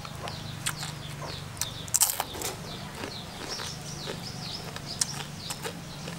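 Birds chirping around in quick, short falling chirps, over a steady low hum, mixed with crisp crunches of fried frog being chewed; the loudest crunch comes about two seconds in.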